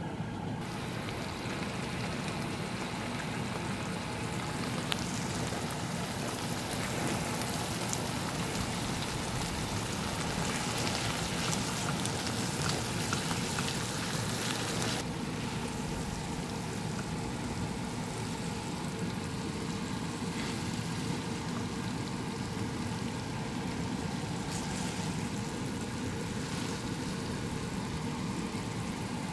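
Food sizzling and bubbling in a frying pan on the stove, a steady hiss that gets softer about halfway through.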